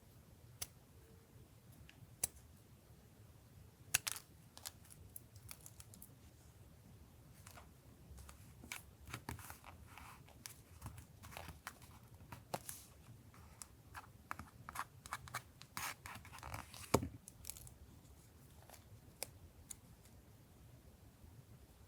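Paper being worked by hand for a journal collage: a few sharp taps, then a busy stretch of short crisp cutting and tearing strokes from about eight seconds in, ending in a louder stroke near seventeen seconds.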